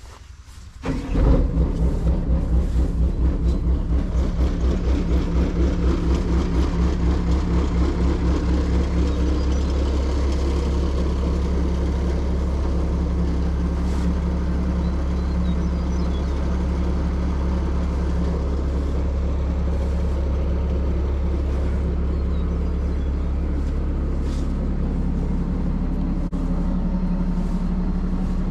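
An engine starts abruptly about a second in and keeps running close by. Its loudness pulses unevenly for the first several seconds, then settles into a steady run.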